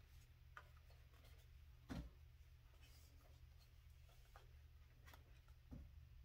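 Near silence: a steady low room hum with faint taps and rubbing from cardboard nail boxes being handled, the clearest knock about two seconds in and another near the end.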